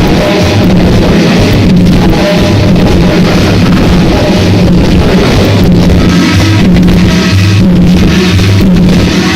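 Very loud music played over a sonidero sound system, with a repeating bass line and drums.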